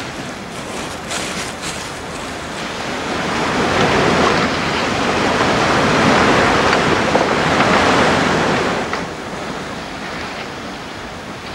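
Sea surf breaking and rushing over shoreline rocks, a steady wash of water noise that swells to its loudest in the middle and eases off near the end.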